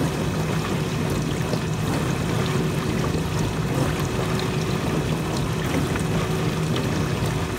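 Dishwasher running on a test cycle: a steady rush of water inside the plastic tub over a steady low hum.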